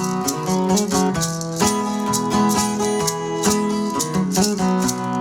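Live band playing an instrumental break: strummed acoustic guitar chords over a steady beat.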